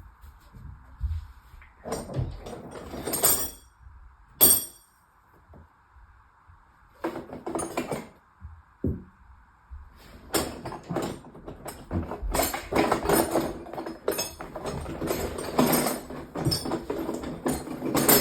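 Hand tools being handled and moved about in a tool bag: rustling and metal clinks, with one sharp click about four and a half seconds in and steady rummaging through the second half.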